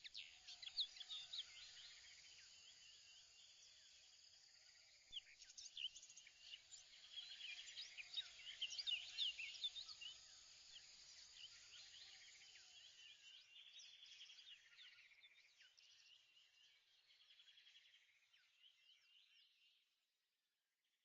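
Faint birdsong: many birds chirping in quick overlapping calls, thinning out and fading away shortly before the end.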